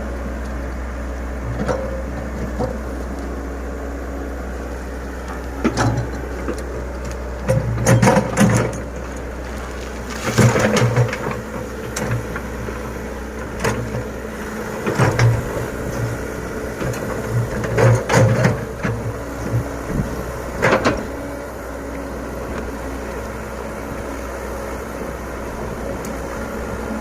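Komatsu PC100 excavator's diesel engine running steadily, with several bursts of knocking and scraping as the bucket works sand.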